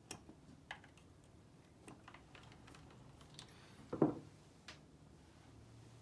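Scattered light metallic clicks and taps as a part on an Oliver No. 6 typewriter is tightened up during reassembly, with one heavier clunk about four seconds in.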